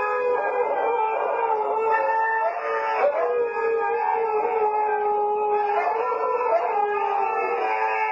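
Siberian huskies howling together, several long held notes overlapping at different pitches that drift slowly up and down.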